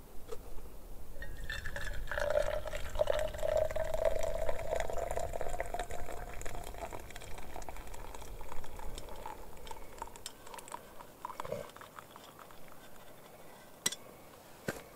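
Coffee being poured into a cup: a steady pour for about five seconds that tapers off into a trickle, with a couple of sharp clicks near the end.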